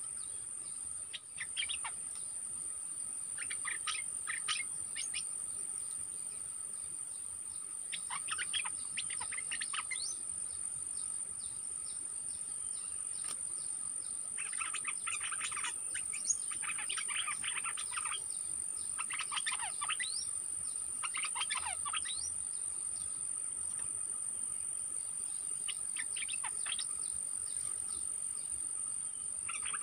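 Caged decoy songbird calling in bouts of quick, sweeping chattering notes, densest in the middle of the stretch. A steady high-pitched insect drone, like cicadas or crickets, carries on behind it.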